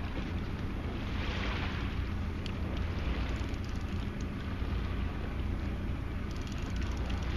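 Fishing boat's engine running low and steady under wind noise on the microphone, with a brief hiss of wind or water about a second in.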